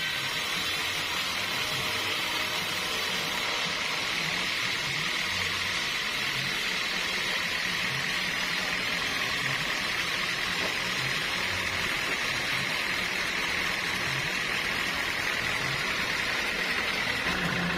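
Sawmill saw running steadily, a constant even hiss with no breaks.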